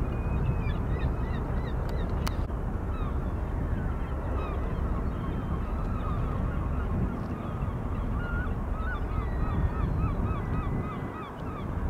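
A flock of birds calling, many short calls repeated rapidly, over a steady low rumble.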